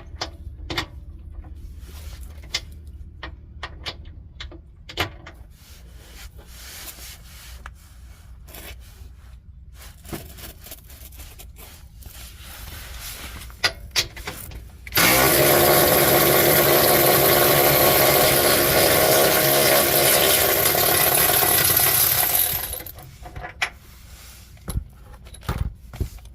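Clicks and knocks of hand tools on the mount's bolts, then about fifteen seconds in a power tool runs loudly and steadily for about seven seconds, loosening the bolts of a GR Corolla's lower engine pitch mount before it comes out. A few more knocks follow near the end.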